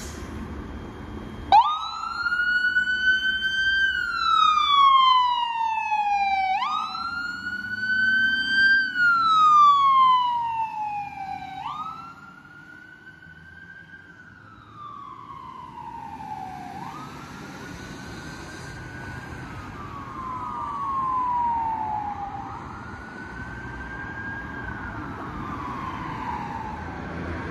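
Ambulance siren on wail, starting suddenly. Each cycle rises quickly and falls slowly, about five seconds long. It is loud at first and then fades as the ambulance drives away.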